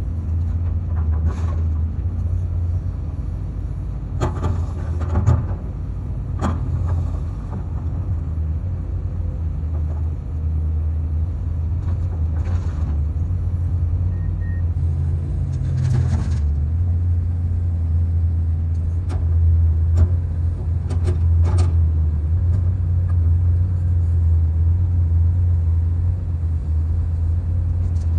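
Small bulldozer's engine running with a steady low rumble, broken by scattered sharp knocks.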